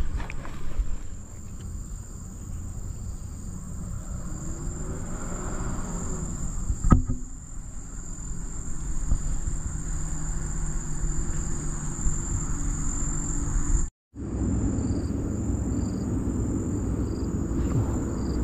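Insects keep up a steady high-pitched buzz over a low rumble, with a single sharp knock about seven seconds in. After a brief dropout, fainter chirps repeat about once a second.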